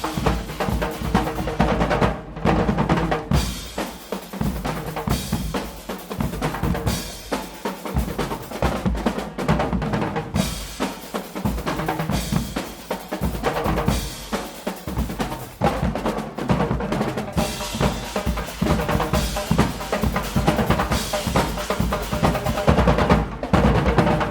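Guggenmusik band's percussion section playing a loud, dense, driving rhythm on bass drums and snare drums.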